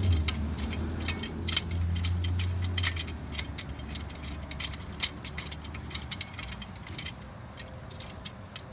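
A steel C-clamp being handled and fitted against a car's disc brake caliper: scattered metallic clicks and rattles. A low hum underneath fades out about three seconds in.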